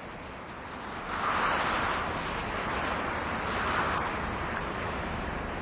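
Rushing-air noise like a steady wind, swelling about a second in and again near four seconds.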